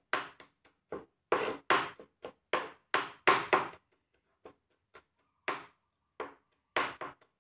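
Large kitchen knife mincing garlic on a plastic cutting board: a run of sharp chopping knocks, about two or three a second, with a short pause about four seconds in.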